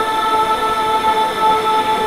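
A steady drone of several held tones over a faint hiss, unchanging in pitch and level.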